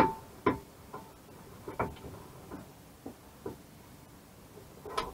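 Irregular metallic clicks and clunks from the tool rest's locking lever and fittings on a SIP 01936 wood lathe, each with a short ring, as the lever is worked and the fittings locked, the loudest at the very start.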